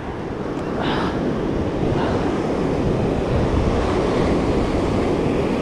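Ocean surf breaking and washing up a sandy beach, swelling louder over the first second and then holding steady, with wind buffeting the microphone.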